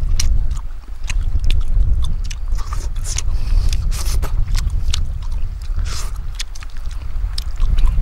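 A man biting into and chewing cooked fish, with many short wet mouth clicks and smacks, over a steady low rumble that is the loudest part.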